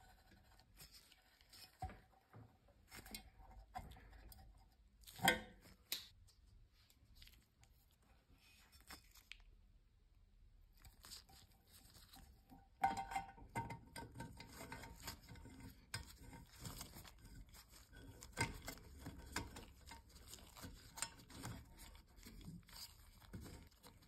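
Faint close-up handling of a lamp socket fitting: small clicks and taps of pliers and metal parts against the shade, and the rustle of nitrile-gloved hands on wire. A sharper click comes about five seconds in, and the handling grows busier from about halfway.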